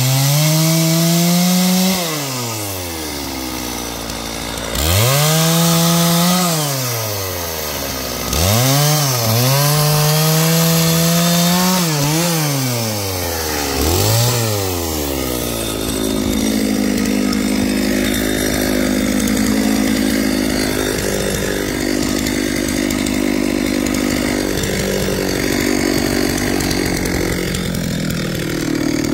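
Stihl two-stroke chainsaw engine revved up and dropped back about five times, then running at a steadier, lower speed through the second half.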